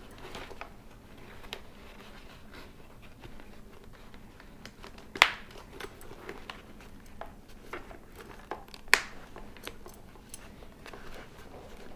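Hands handling a motorcycle helmet's inner liner and padding: soft rustling and scraping with small ticks, and two sharp clicks or knocks, about five and nine seconds in.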